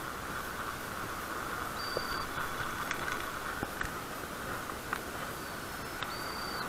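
Spincast reel being wound in as a small fish is lifted on the line: a few scattered clicks over a steady hiss, with two brief high-pitched tones, about two seconds in and near the end.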